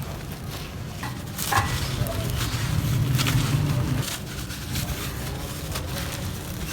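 Dry, crispy, dusty earth being crumbled: a dense run of gritty crackles and crunches, heavier a little before the middle.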